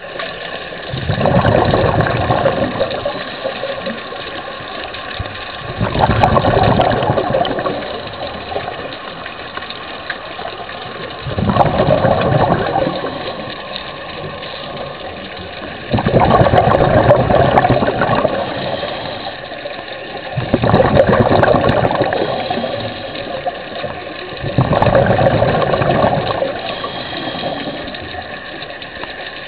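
Scuba diver breathing through a regulator underwater: six loud rushes of exhaled bubbles, each lasting about two seconds and coming every four to five seconds, with a quieter steady hiss between them.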